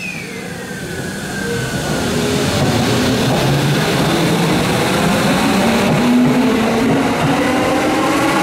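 Tokyo Metro 05 series electric train accelerating, its traction motors and inverter whining. A high whine falls in pitch over the first second or so. Then lower motor tones climb steadily and the running noise grows louder as the train gathers speed.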